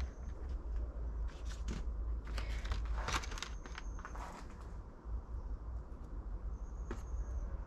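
Thin clear plastic seed tray being handled, its plastic crackling and clicking irregularly over a low steady rumble.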